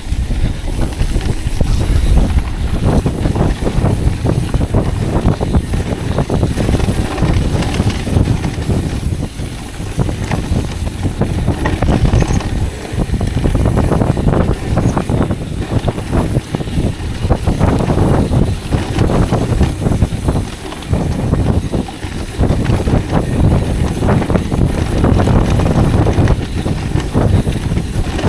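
Mountain bike rolling fast down a damp dirt trail: tyre rumble, wind buffeting the camera's microphone, and frequent rattles and clatters of the bike over bumps.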